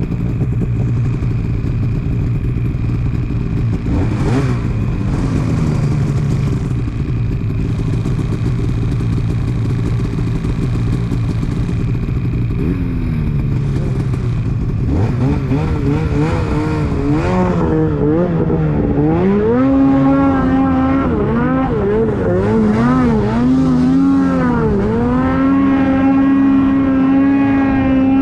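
Two-stroke mountain snowmobile engine running under load on a climb, steady at first, then revving up and down repeatedly from about halfway and holding high revs near the end.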